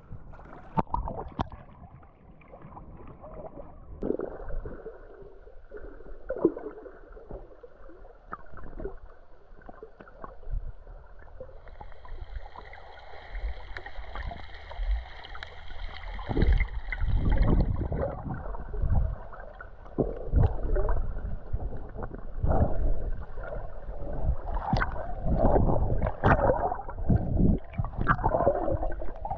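Muffled water sloshing and splashing with irregular low thumps, busier in the second half. A steady high tone sounds for several seconds around the middle.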